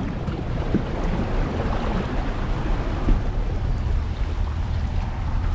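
Steady low rumble and rushing noise of a bass boat on its trailer being towed up a launch ramp by a pickup truck.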